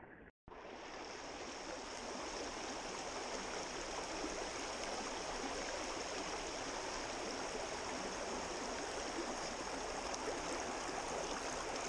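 A small mountain trout stream rushing over riffles: a steady hiss of flowing water. It starts about half a second in and holds steady.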